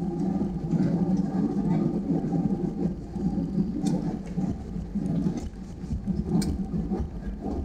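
Airbus A320 cabin noise while taxiing after landing: the steady rumble of the engines at idle and the rolling airframe, with a few light clicks or rattles about four seconds in and again later.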